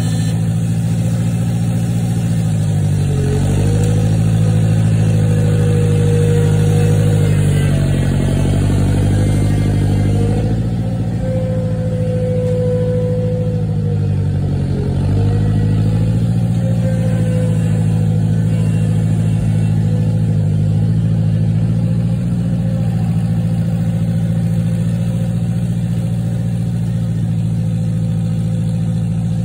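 International 544 tractor's engine running steadily close by, its pitch dipping briefly and recovering twice, about three seconds in and again about halfway through.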